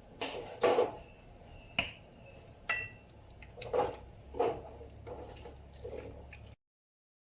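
Kitchenware clinking and knocking, utensils against pots and dishes: about eight separate knocks, two of them with a brief ringing tone. The sound cuts off abruptly near the end.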